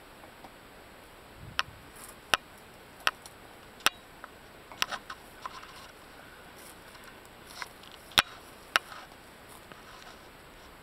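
A string of sharp clicks over a faint steady hiss: four evenly spaced at first, then a quick little cluster, then three more near the end.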